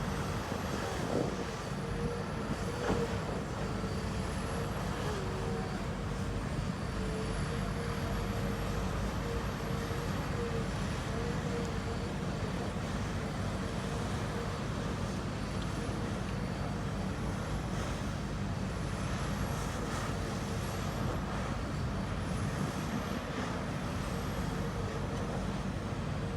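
Electric motors of radio-controlled model construction machines running, with a steady hum and a high whine that rises and falls again and again as the machines work. A couple of short knocks come in the first few seconds.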